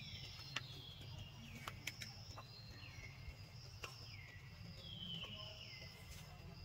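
Faint bird calls: a string of short notes that each fall in pitch, about one a second, over a steady high insect drone.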